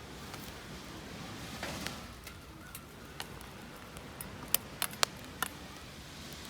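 Wood campfire crackling: scattered sharp pops and ticks over a steady hiss, with a quick run of louder pops about four and a half to five and a half seconds in.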